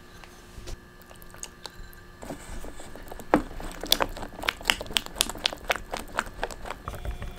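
Silicone spatula stirring thick batter with melted butter in a stainless steel bowl: wet squishing with quick, irregular clicks and scrapes against the metal. The stirring gets busier and louder about two seconds in.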